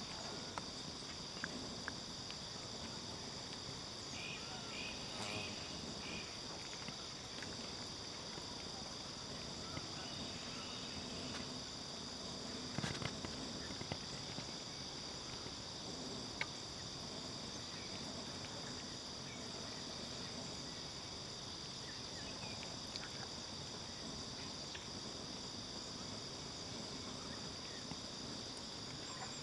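Steady, continuous high-pitched drone of an insect chorus in a wetland, with a brief knock about 13 seconds in.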